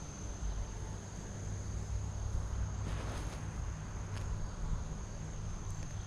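Crickets trilling steadily as one continuous high-pitched tone, over a low rumble, with a brief rustle about three seconds in.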